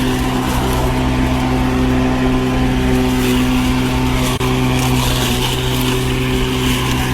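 Sun Joe MJ401E 12-amp corded electric lawn mower running while mowing grass: a steady motor hum with a short dip about four seconds in.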